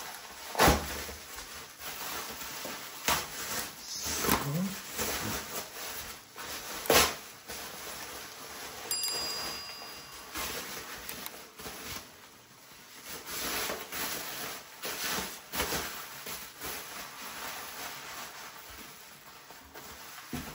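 Packaging being handled and opened by hand to unpack a metal poster: irregular rustling, crinkling and scraping with scattered sharp knocks.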